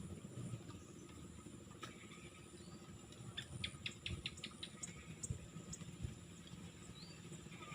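Faint riverside insects, crickets or similar: a steady high-pitched drone, with a quick run of about seven chirps about halfway through and a few scattered chirps.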